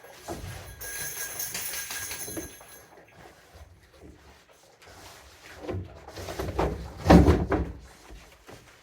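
Sheets of 3/8 plywood being handled on a cabin roof frame: a sliding scrape, then several wooden knocks and thumps, the heaviest about seven seconds in.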